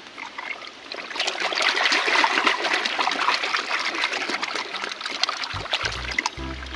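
Water splashing and trickling as a muddy toy is rinsed and scrubbed by hand, starting about a second in.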